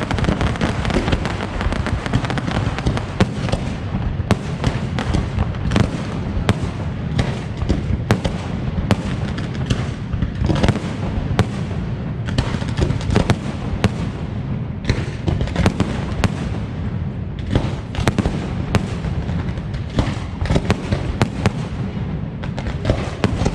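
Aerial fireworks display: a dense, continuous barrage of shell bursts and crackle, with many sharp bangs each second over a steady rumbling roar.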